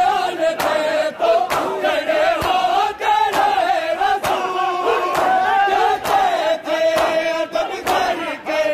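Male voices reciting a noha, sung over a crowd's matam: mourners striking their bare chests in unison, a sharp blow roughly every 0.7 seconds.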